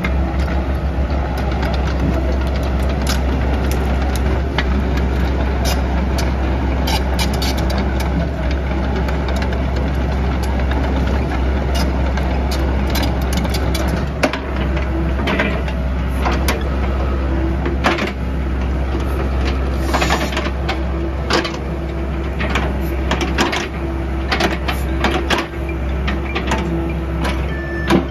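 Doosan DH55 mini excavator's diesel engine running steadily as the boom and arm are worked. Sharp clanks and knocks come through the engine sound, many of them in the second half.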